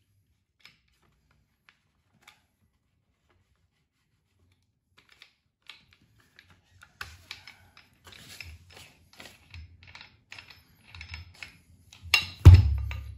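Small clicks and rattles of an angle grinder being handled while a paper disc and its flange nut are fitted onto the spindle, thickening in the second half and ending in one loud knock near the end. The grinder is not running.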